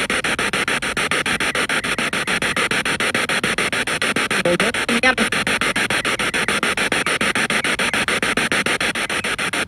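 Spirit box radio sweeping through stations and played through a portable speaker: static chopped into quick, even pulses several times a second, with a brief voice-like scrap of broadcast about halfway through, which the investigator takes for a spirit's answer.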